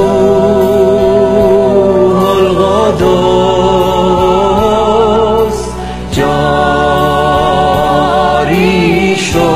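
A man and a woman singing a Persian Christian worship song as a duet over a karaoke backing track. They hold long notes with vibrato, with new phrases starting about three and six seconds in.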